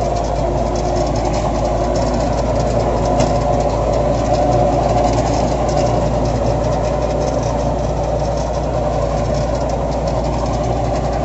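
Tractor's diesel engine running steadily under load, powering a Jaswant super seeder as it works through paddy straw and stubble.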